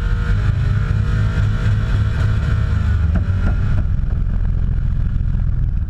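Car engine held at high revs through a burnout, heard from inside the cab, running steadily and loud; its higher note fades about four seconds in.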